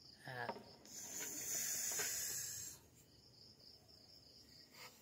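Crickets chirping in a steady pulsing rhythm, with a short vocal sound just after the start and a hissing noise from about a second in that lasts nearly two seconds.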